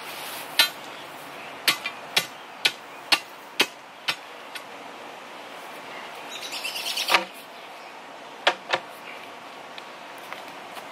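Steel tamping bar striking gravel in the bottom of a post hole: about eight sharp strikes in the first four seconds as the gravel is packed down. Then a rising scrape ending in a thud as the wooden post is set down into the hole, followed by two more knocks.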